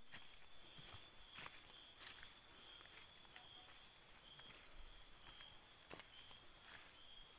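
Steady high-pitched chorus of night insects in tropical forest, with a few faint clicks or knocks scattered through it.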